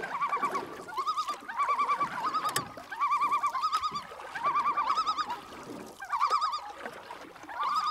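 An animal call: a quavering, wavering note, repeated in about ten short bursts of roughly half a second each.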